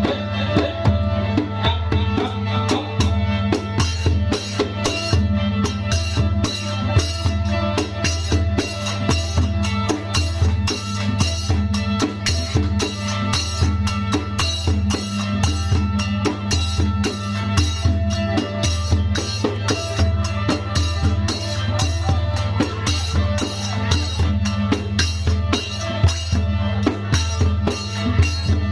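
Music for a Ruem Mamuat spirit-medium dance: a fast, steady drum beat with sustained melody and drone lines over it, played without a break.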